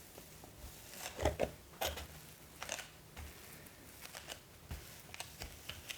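Light taps, clicks and rustles of cardboard packaging and small accessories being handled and put back into a box, irregular and close to the microphone over a faint steady hiss and hum.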